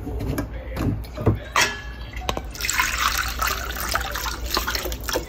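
Thinned, ground curry-leaf mixture poured from a steel vessel through a strainer into a hammered steel bowl, splashing steadily from about halfway through. A few light knocks and clinks of the metal vessels come before it.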